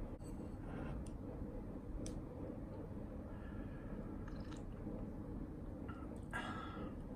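Quiet chewing of a mouthful of buttered toast over steady low room noise, with a few faint clicks and a short rustle near the end.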